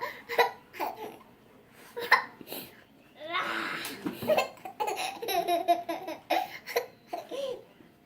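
A small child giggling in short bursts, with pauses between the bursts and one longer breathy laugh midway.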